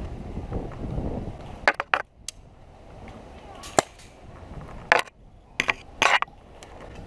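Airsoft guns firing scattered single shots: about eight sharp cracks at irregular intervals, some in quick pairs, starting under two seconds in after a stretch of wind-like rumble.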